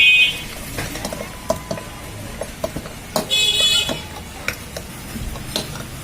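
Scattered light metal knocks and taps as the upper bearing is worked off a ceiling fan's shaft. A short, shrill high tone sounds at the very start and again a little after three seconds in; these are the loudest sounds.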